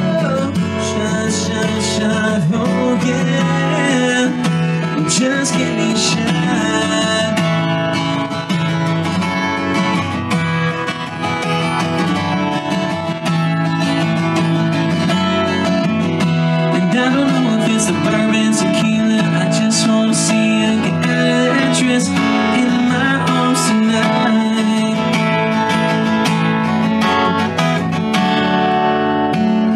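Acoustic guitar playing a country song live.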